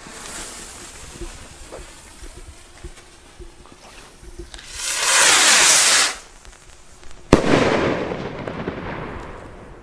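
Funke silver flash rocket (Silberblitzrakete) going off: its fuse is lit and hisses, then a loud rushing noise lasts about a second and a half midway. A single sharp bang comes a little after seven seconds and rolls away in a long echo.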